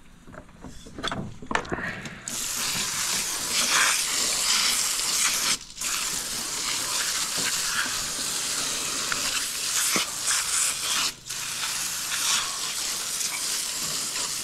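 Garden hose spray nozzle blasting water onto a flounder on a fillet table: a steady hiss that starts about two seconds in after a few knocks, and breaks off briefly twice as the trigger is let go.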